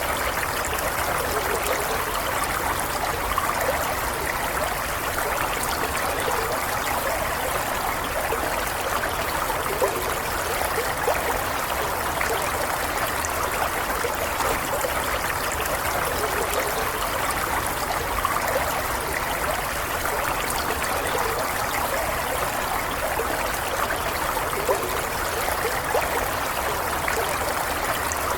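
Water in a stream running and gurgling steadily, a continuous babble without pause.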